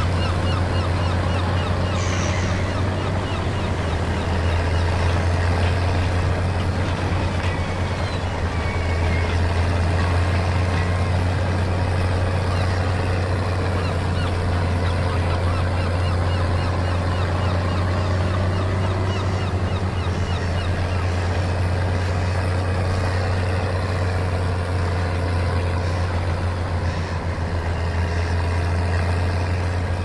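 Case International 1455 XL tractor's six-cylinder diesel engine pulling steadily under load while ploughing, with gulls calling now and then.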